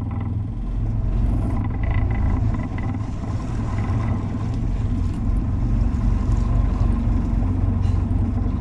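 Fishing boat's engine running steadily with a deep, even low rumble.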